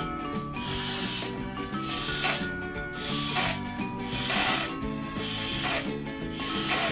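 A latex balloon being inflated: puffs of rushing air about once a second, over background music.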